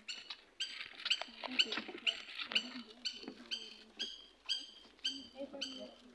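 A bird calling over and over, a short high note repeated evenly about twice a second.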